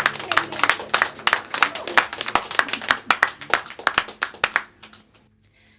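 A small audience clapping after a song ends, the irregular claps thinning out and dying away about four and a half seconds in.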